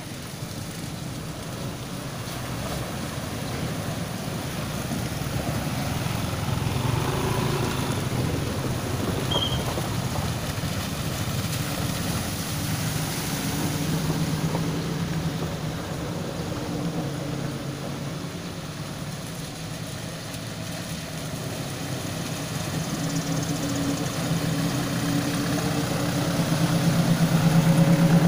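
Engines of slow-moving vehicles, a minibus and then a truck, running at low speed as they creep through a flooded road, with their tyres sloshing through muddy water. The truck's low engine hum grows louder near the end as it passes close.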